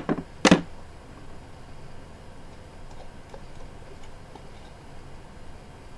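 Two sharp knocks about half a second apart at the very start, like objects set down on a hard counter, then low steady room tone with a few faint ticks.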